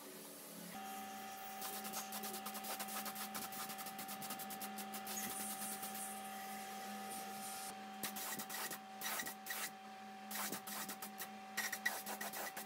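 Gravity-feed compressed-air spray gun spraying paint: a steady hiss of air and paint mist for several seconds, then short spurts from about eight seconds in, over a steady hum.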